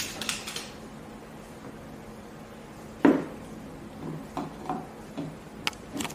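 Hard plastic parts of an automatic foam soap dispenser being handled and fitted together: a solid knock about three seconds in, lighter taps after it, and two sharp clicks near the end.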